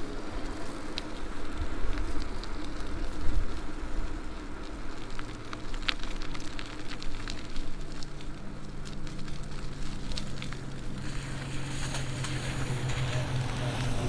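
E-bike tyres crackling and hissing over the road during a ride, with scattered sharp ticks. A low engine hum builds in the second half and grows louder toward the end.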